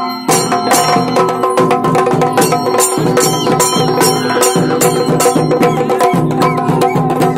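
Chenda melam: rapid, dense strokes on chenda drums with metallic ilathalam cymbals, over steady held notes.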